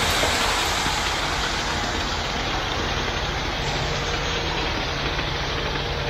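Ready-mix concrete truck's engine running steadily, a constant rumble as the truck discharges concrete down its chute.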